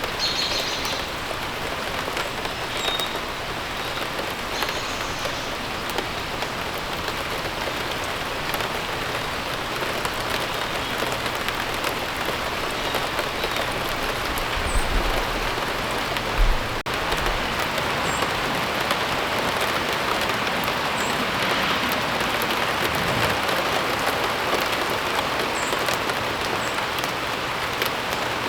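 Steady rain falling on surfaces, an even hiss of drops. A few short bird chirps sound faintly over it, and a brief low thump comes about halfway through.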